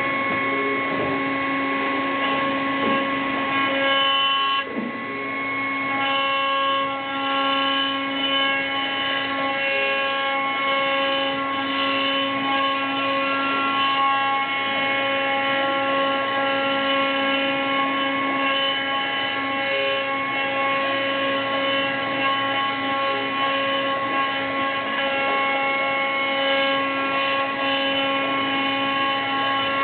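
Multiax 5-axis CNC milling machine's spindle running steadily, its cutter roughing out a block of epoxy resin in stepped terrace passes, with a steady multi-toned whine that briefly dips about five seconds in.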